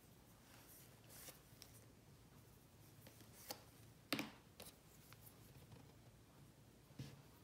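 Near-quiet room with a faint low hum and a few light clicks and taps from painting tools being handled on the table, the sharpest about four seconds in.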